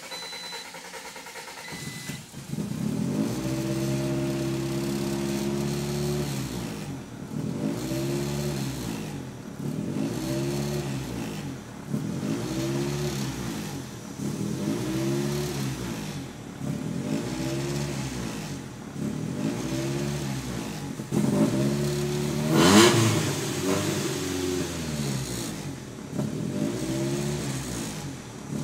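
Honda B18B 1.8-litre four-cylinder engine in a CRX starting about two seconds in after a slow crank, then revved over and over, its pitch rising and falling about every two seconds. One rev about three quarters of the way through is louder and sharper. The engine is hard to start even when warm, and the owner suspects some vacuum leaks.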